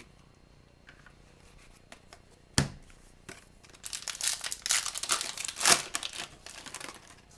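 Hockey card pack wrapper being torn open and crinkled by hand. There is a sharp snap about two and a half seconds in, then a run of dense crackling.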